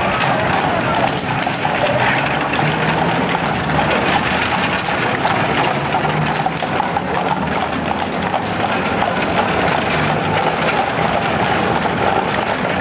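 Continuous outdoor street noise: a steady rushing hiss with a faint low hum that comes and goes a few times.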